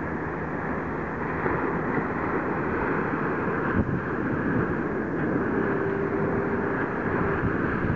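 Strong wind rushing steadily over the microphone, with a faint steady tone for about two seconds near the end.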